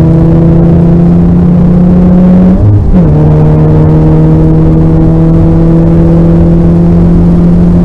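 Car engine heard from on board, pulling hard under load with its pitch climbing slowly, then dropping sharply and briefly about two and a half seconds in, an upshift, before it climbs again through the next gear.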